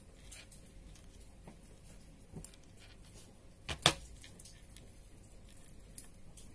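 Faint clicks of small metal jewellery parts and beads being handled with pliers, and a sharp double clack a little before four seconds in as the jewellery pliers are set down on the plastic tray.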